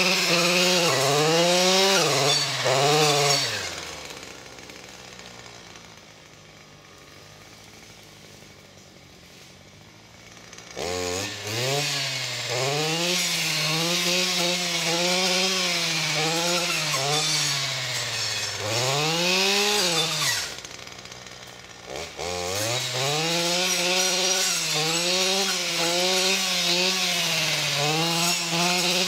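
Stihl FS 240 C-E two-stroke brushcutter cutting through saplings, its engine revving up and down with the throttle and the blade hissing through the stems. It falls to a low idle from about four seconds in until about eleven seconds, then revs again, with a brief dip near twenty seconds.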